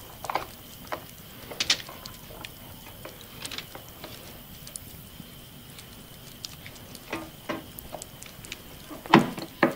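Chopped vegetables being tipped and handled onto a food-dehydrator tray: scattered light knocks, taps and rustles, with a sharper double knock near the end.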